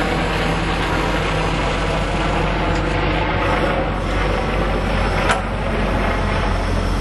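John Deere 225C LC excavator's diesel engine running steadily, with one sharp knock about five seconds in.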